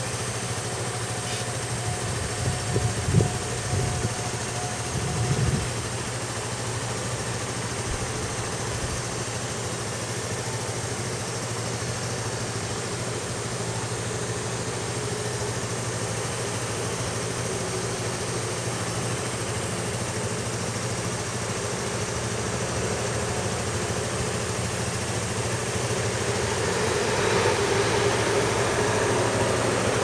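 Road traffic with a vehicle engine idling in a steady low hum, a few short louder bumps in the first seconds, and the traffic noise growing louder near the end.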